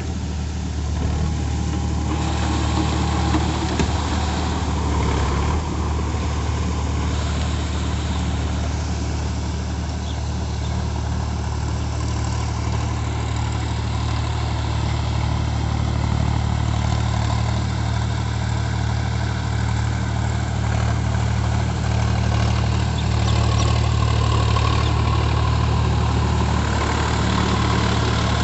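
Sonalika tractor's diesel engine running steadily under load as it drives a rotary tiller through a flooded paddy field, growing a little louder near the end as it comes close.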